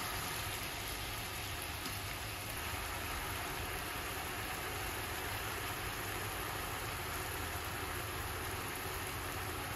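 Chicken and leek sizzling and bubbling in soy sauce in a frying pan: a steady, even hiss.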